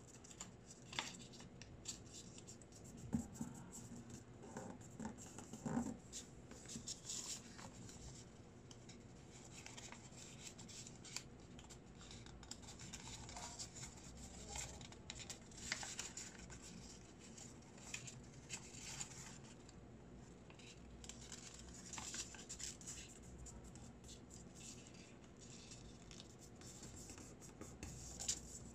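Origami paper rustling and crinkling as it is folded and creased by hand, in scattered short scrapes, with a couple of low knocks about three and six seconds in.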